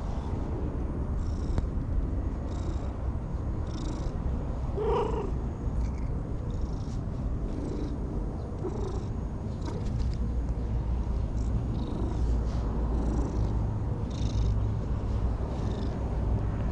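Orange-and-white cat purring steadily while being stroked, the purr growing louder about ten seconds in.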